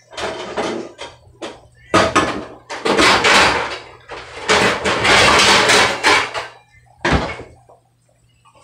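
Metal pans and bakeware clattering and scraping against each other as a lower kitchen cabinet is rummaged through, with a sharp knock near the end.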